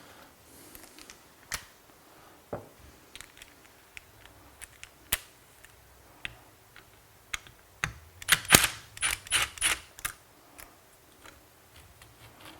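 Sharp clicks and knocks of metal parts and hand tools being worked on a car seat rail as its seat position sensor is pried off, single taps spread out and a quick run of rattling clicks about eight to ten seconds in.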